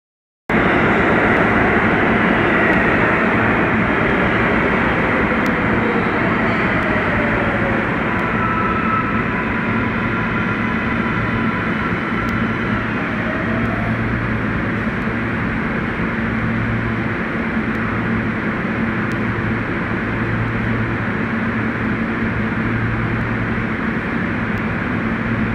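Subway train running through a tunnel, heard from inside the car: a steady, loud rumble of wheels on rail with faint high squeals and a whine that glides in pitch. It cuts in suddenly just after the start.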